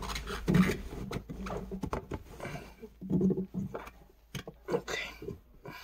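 Plastic diesel tank sender unit being worked back into the tank opening by hand, with its hoses and cables rubbing: irregular scraping and rustling with a few light knocks, one about two seconds in and one about four seconds in.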